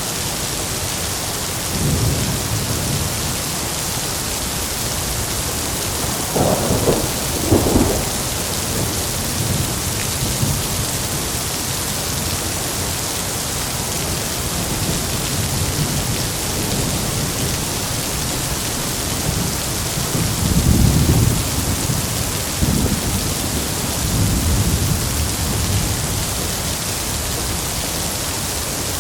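Heavy rain falling steadily, with thunder rumbling several times, the loudest a crackling peal about six to eight seconds in and another long rumble about twenty-one seconds in.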